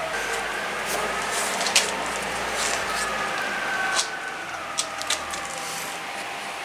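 A few sharp clicks and knocks of wood against wood as a glued wooden plug is pressed by hand into the hole cut for it, over a steady background hiss.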